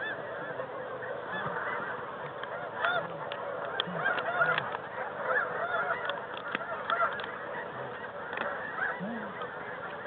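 Snow geese calling: a dense chorus of many overlapping, high-pitched honks with a few lower honks mixed in, and some light clicks in the middle.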